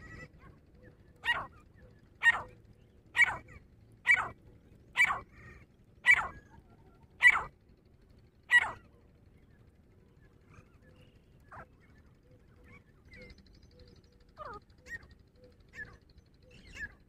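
Grey francolin calling: a run of eight loud, sharp, short notes about one a second, followed by fainter, softer calls from about halfway through.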